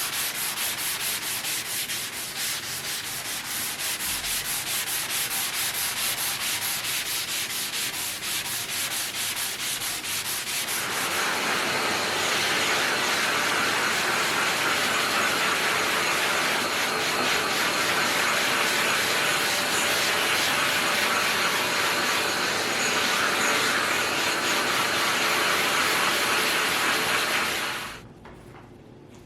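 Sanding: a rasping rub in quick, regular strokes, becoming steadier and louder about eleven seconds in, then stopping abruptly near the end.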